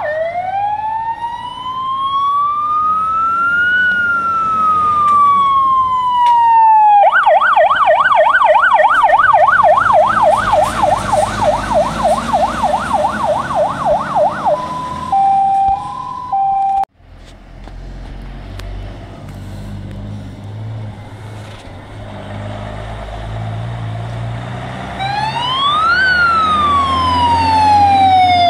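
Fire engine sirens: a slow wail rising and falling, switching about seven seconds in to a fast yelp, then a brief high-low two-tone. After an abrupt break near the middle, a truck engine rumbles as another fire engine approaches with its siren wailing up and down near the end.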